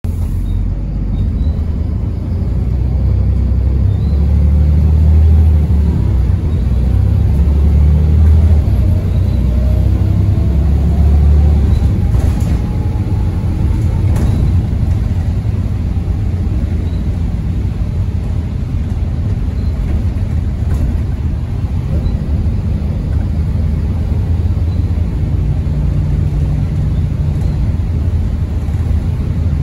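Single-deck bus's diesel engine and drivetrain heard from inside the passenger saloon: a heavy low rumble as the bus pulls along, with a faint rising whine as it gathers speed in the first half, then steadier, somewhat quieter running.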